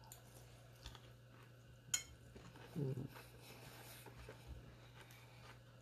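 Quiet eating with a metal fork from a bowl: one sharp clink of the fork against the bowl about two seconds in, a brief low hum from the eater a second later, and faint chewing.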